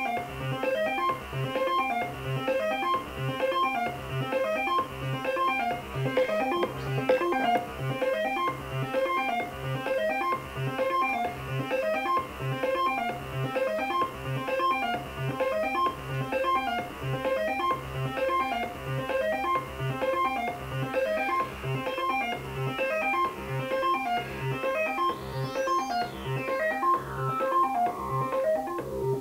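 Moog Werkstatt analog synthesizer playing a fast, repeating sequenced note pattern sent over MIDI from a Novation Circuit, with a steady low pulse under it.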